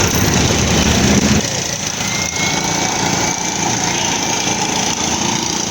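Engines running steadily, with the deep rumble dropping away about a second and a half in.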